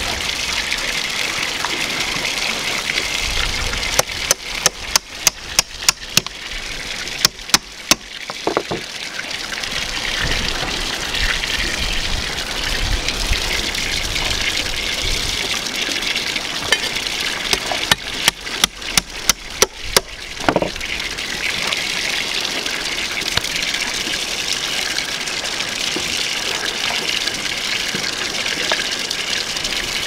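Two runs of sharp knocks on a cutting board, about two to three strikes a second for a few seconds each, as fish steaks are chopped through the bone with a knife driven by a hammer. A steady rushing noise runs underneath.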